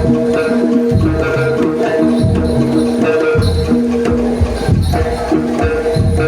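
Live jaranan music from a Javanese ensemble: drums keep a steady beat under held pitched notes and jingling percussion.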